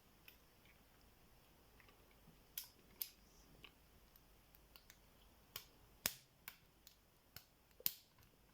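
Scattered small clicks of a pick pressing and setting the pins of a tubular bicycle lock held under tension, about a dozen over several seconds with long quiet gaps between them.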